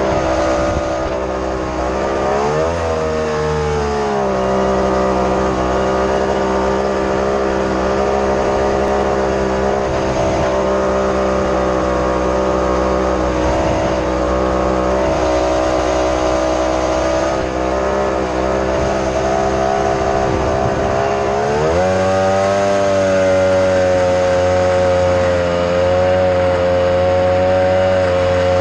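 Mini jet boat engine running steadily. It revs up and drops back about three seconds in, then climbs to a higher, steady pitch about twenty-two seconds in.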